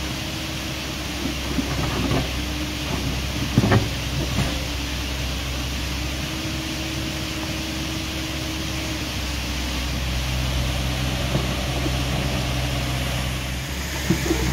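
Excavator's diesel engine running steadily, with a few sharp clanks in the first four seconds.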